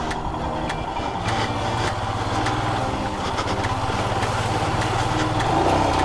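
Royal Enfield Himalayan motorcycle's single-cylinder engine running steadily under way, its note firming up about a second in.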